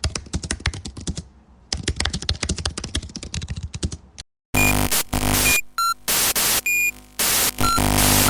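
Computer keyboard typing: fast, irregular key clicks for about four seconds with a brief pause about a second in. Then a choppy static glitch effect: loud bursts of hiss with short beeps, cutting in and out several times.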